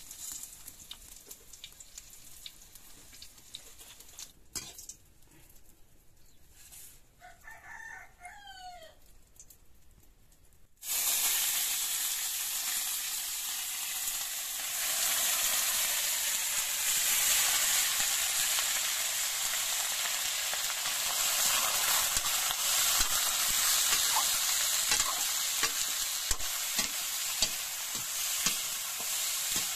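A rooster crows once, faintly, about a quarter of the way in. Then chopped meat hits hot oil in a metal wok and starts sizzling loudly all at once, getting louder a few seconds later, with the clinks and scrapes of a metal spoon stirring it near the end.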